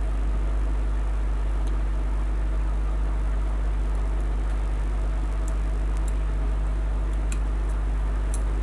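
A steady low electrical hum with evenly spaced overtones. A few faint small clicks come in the second half.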